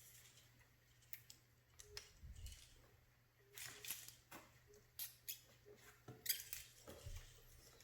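Faint, intermittent rustling and scratching with a few light clicks: hands working adhesive rim tape and its film around a motorcycle wheel rim.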